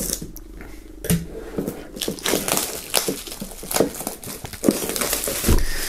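Plastic shrink-wrap film being slit and peeled off a cardboard box, with many short crinkles and crackles that grow denser from about two seconds in.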